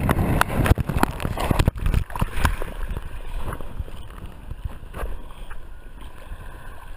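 Seawater sloshing and splashing over a handheld action camera at the surface of the surf, with sharp crackles and knocks of water hitting the camera. Loudest in the first two to three seconds, then a quieter churn.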